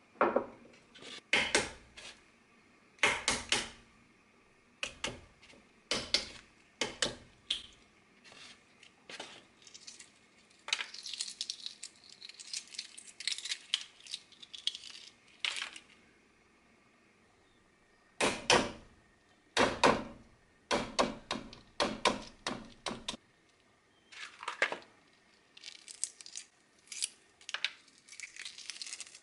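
Steamed, cooled eggs tapped against a hard surface in short groups of sharp knocks to crack the shell, then the shell crackling as it is peeled off by hand.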